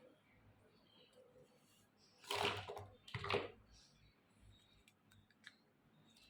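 Small plastic toy pieces being handled, with light clicks and taps and two louder, half-second handling noises near the middle.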